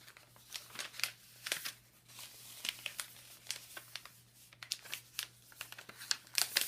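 Sheet of paper being handled and folded, with irregular crinkling and crisp crackles as it is creased.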